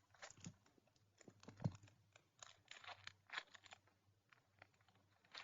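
Faint handling sounds: scattered soft crackles and rustles as a foam squishy toy and its plastic packaging bag are handled, with one louder tap about one and a half seconds in.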